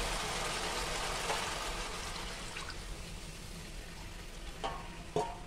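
A glass of water poured into a steel kadhai of hot besan-masala gravy. The steady rush of pouring fades over the first few seconds, and a couple of light knocks come near the end.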